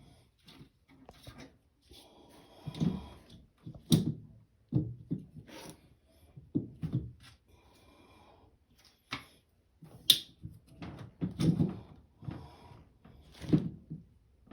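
Irregular knocks, clicks and short clattering of parts and tools being handled inside a washing machine during a repair, with sharper hits about 4 and 10 seconds in.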